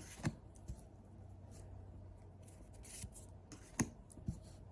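Faint handling of trading cards: cards sliding over one another with soft swishes, and a few light clicks and taps.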